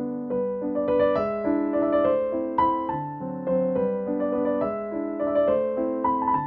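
Background music: a keyboard melody of notes changing about every half second over held lower chords.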